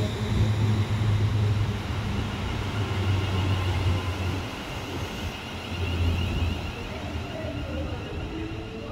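Electric multiple unit pulling away along the platform: a low drone from its traction equipment with a high whine over it, fading as the train draws away.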